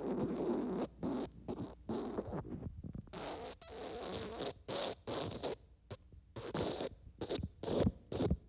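Wet fart sound effect: a long run of short, irregular wet sputters broken by brief gaps.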